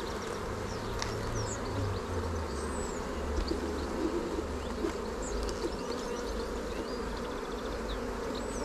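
Honeybees buzzing in a steady hum from an open hive.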